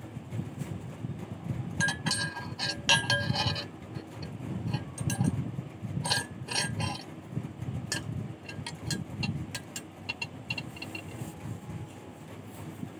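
Steel wire clinking and tapping against a metal bench vise and hand tools as it is bent by hand into a torsion spring, with a cluster of sharp clinks about two to three and a half seconds in and scattered lighter ticks after, over a low steady rumble.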